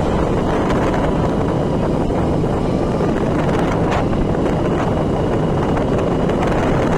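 Steady wind rushing over the microphone with the sound of a moving vehicle.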